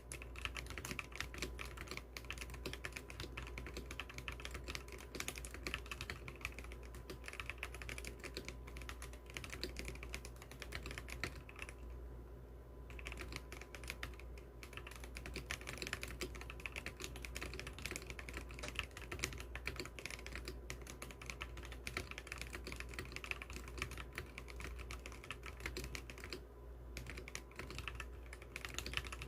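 Continuous typing on an Akko 5075B Plus mechanical keyboard with dye-sub keycaps, a fast stream of key clacks with brief pauses about twelve seconds in and near the end.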